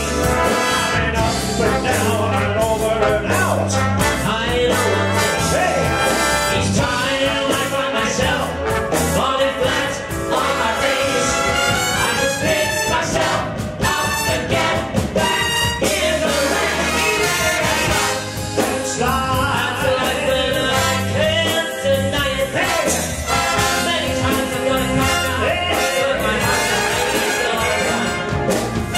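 Live swing big band with two male vocalists singing over saxophones, brass, drums and bass.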